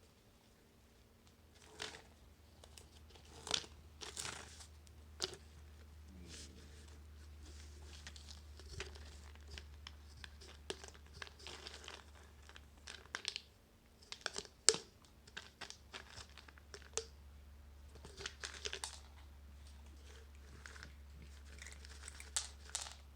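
Cats pawing and rummaging at a treat-filled plastic toy egg: irregular crinkling and rustling with scattered sharp clicks and taps, the sharpest about two-thirds of the way through.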